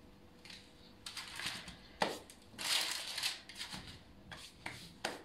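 Crinkling and rustling of baking paper and a bowl's covering as braided bread loaves are handled and set down on the counter. There is a sharp knock about two seconds in, a louder rustle just after, and a few small clicks near the end.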